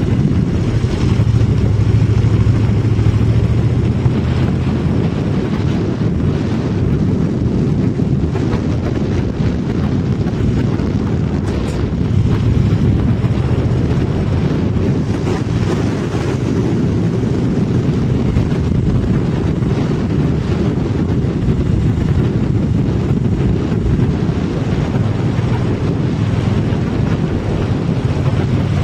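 A vehicle driving along a gravel road: a steady low rumble of engine and tyres, with wind buffeting the microphone.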